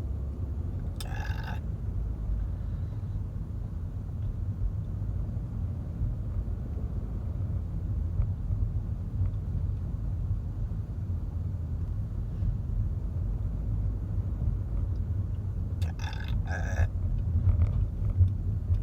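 Steady low road rumble inside a moving car, with a woman burping briefly about a second in and again near the end.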